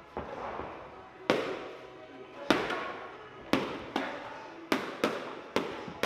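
Boxing gloves smacking against a trainer's padded striking sticks, about nine sharp slaps, singly and in quick pairs. Each slap is followed by a short echo.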